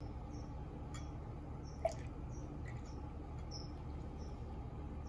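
A short, high chirp repeating a couple of times a second from a small animal, over a steady low background hum, with a single small click about two seconds in.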